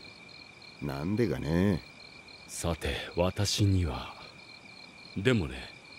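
Crickets chirping steadily in the background under short lines of Japanese anime dialogue spoken by two men.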